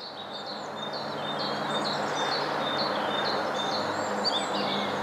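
Woodland birdsong: a tit and other small birds repeating short chirping calls, over a steady rushing background noise that grows louder over the first couple of seconds.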